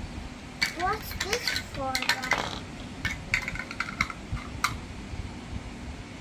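Small plastic toy playset pieces clattering and knocking together as they are handled and set down, in a quick irregular series of clicks, with a few short rising squeaks around the first two seconds.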